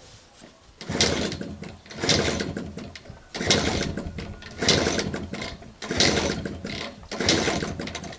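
Minsk motorcycle's two-stroke single being kick-started over and over without catching. There are about six kicks, a little over a second apart, each a sudden mechanical clatter that dies away.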